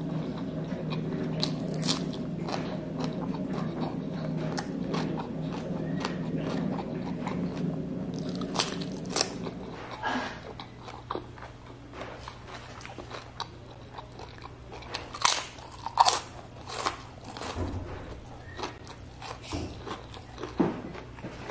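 Chewing and crunching of crispy fried chicken skin, with loud sharp crunches of fresh bites in the second half. A low steady hum runs under the first half and stops about halfway.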